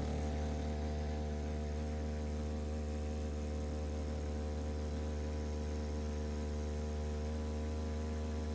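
A motor boat's engine running at a steady speed, giving an even, low hum of unchanging pitch.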